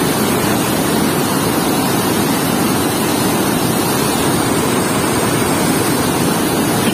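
Water gushing through a dam sluice gate and churning into white water: a loud, steady rush.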